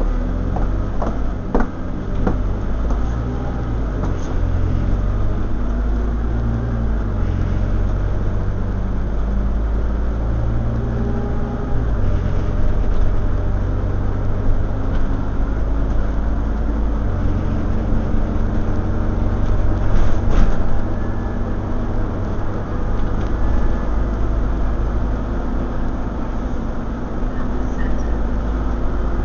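Scania OmniCity double-decker bus heard from inside the passenger saloon while under way: a steady low engine drone whose pitch steps up and down several times. A few sharp knocks or rattles come through, one about a second and a half in and a louder one about twenty seconds in.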